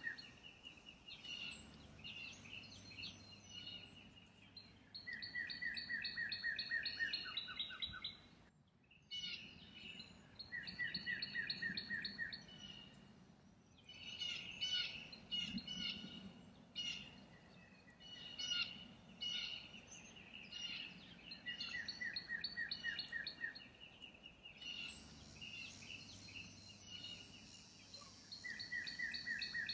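Songbirds singing: repeated runs of quick, evenly spaced notes, each lasting a second or two, with short chirps between them.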